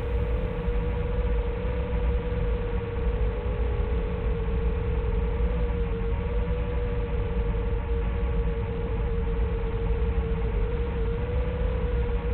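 Small FPV drone in flight, a steady whine that wavers slightly in pitch over a bed of hiss.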